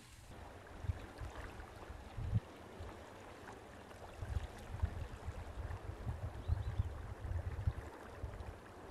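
Flood-swollen river water rushing steadily, with irregular low gusts of wind buffeting the microphone that grow busier about halfway through.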